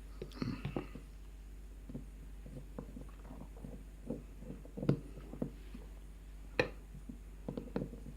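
Scattered small clicks and taps from a lock and tools being handled while a picked Medeco lock is readied for taking apart. The two sharpest knocks come about five seconds in and again a second and a half later.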